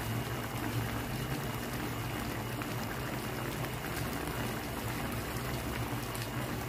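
A pan of chicken adobo simmering in its soy-sauce broth with a steady bubbling, over a low steady hum.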